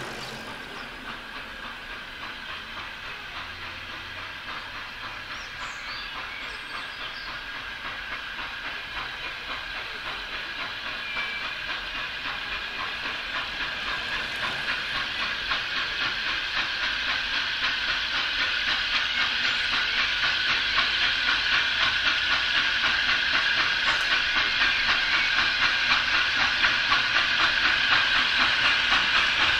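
Steam locomotive hauling coaches approaches under power, its exhaust beats coming in a rapid, even rhythm over a steady hiss of steam, growing steadily louder as it nears.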